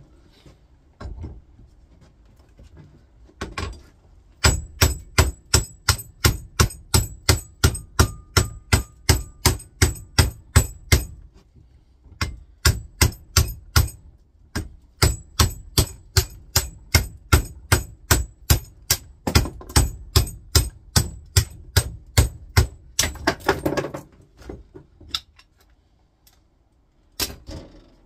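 Hammer striking the welded steel lamination core of a microwave oven transformer in fast repeated blows, about three a second, each with a bright metallic ring, in runs with short pauses. The blows are breaking the bottom weld that holds the I-plate onto the E-laminations. A few lone knocks and some handling follow near the end as the weld gives.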